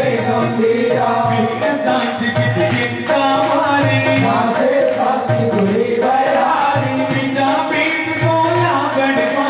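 Devotional chalisa hymn sung to a melody over a steady percussion beat.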